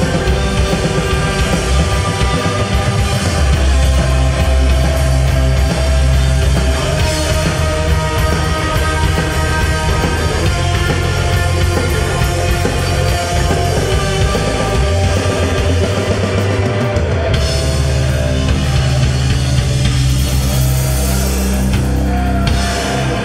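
Heavy rock band playing live and loud through amplifiers: distorted electric guitars, bass and drum kit.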